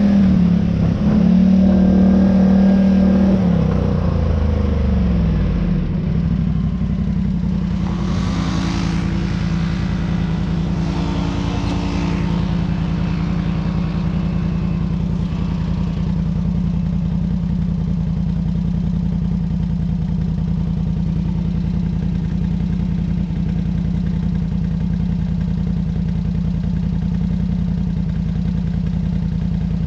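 Off-road vehicle's engine running: its pitch drops over the first few seconds as it slows, then it holds a steady drone, with a brief rushing noise about a third of the way in.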